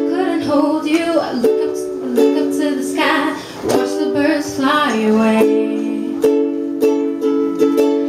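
A woman singing a slow ballad live while strumming a ukulele. After about five seconds the voice gives way to held, strummed chords.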